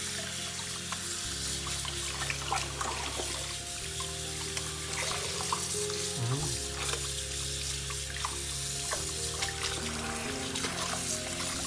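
Tap water running steadily into a sink basin, splashing as a puppy is rinsed and scrubbed by hand under the stream. Background music with held chords that change every couple of seconds plays underneath.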